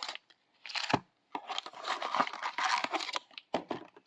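Wrapping on trading card packs crinkling and tearing as it is handled, in irregular bursts: a short rustle just before a second in, then a longer stretch of crinkling.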